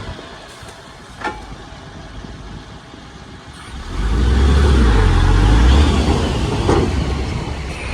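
Heavy diesel engine of earthmoving machinery running fairly low, then rising to a loud, deep run about four seconds in; a short knock a little over a second in.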